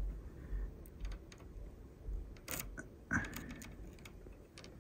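Scattered light clicks and taps of metal tweezers against wires and solder lugs inside an opened multimeter, with handling rumble; the sharpest click, about three seconds in, rings briefly.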